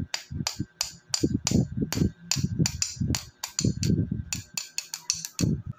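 Steel open-end wrench clicking against the locknut on a bicycle pedal axle as the nut is run down in short turns, the wrench re-seated each time: a quick series of metal clicks with dull knocks, about four a second.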